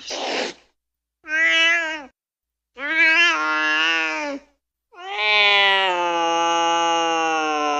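Domestic cat yowling in anger: a short breathy sound at the start, then three drawn-out wailing calls, the first two wavering and the last long and held steady. This is the threatening yowl of an agitated cat.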